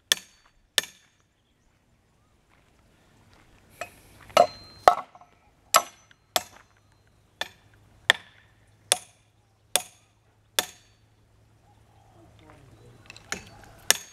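Loud hammer blows driving a fitting into a too-small hole in an old electricity pole. There are about fourteen sharp, ringing strikes, roughly one every three-quarters of a second, pausing for about three seconds after the second strike and again shortly before the end.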